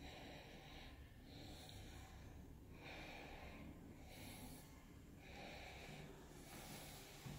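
Faint breathing of a person close to the microphone, several slow breaths in and out at an even pace.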